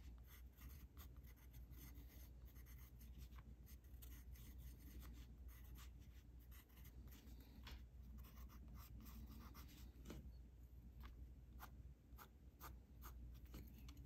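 Pencil scratching on paper in many quick, short shading strokes, faint.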